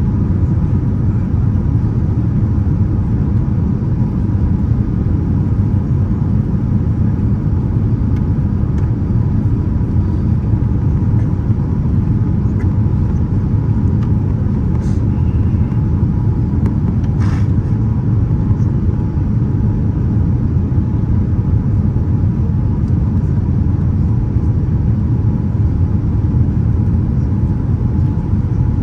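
Boeing 787-9 airliner cabin noise: a steady low rumble of engine and airflow noise, with a faint steady hum and a couple of small clicks midway.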